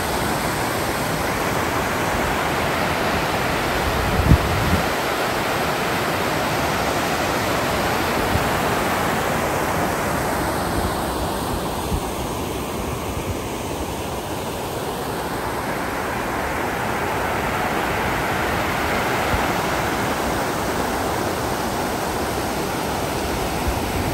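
Steady rush of falling water, its hiss thinning for a few seconds in the middle and then coming back, with one brief low thump about four seconds in.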